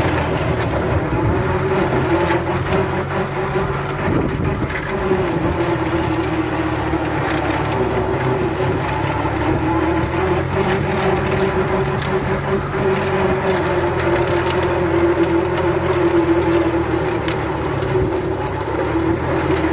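John Deere tractor's diesel engine running steadily under load while driving a rear-mounted rotavator that churns grass and soil.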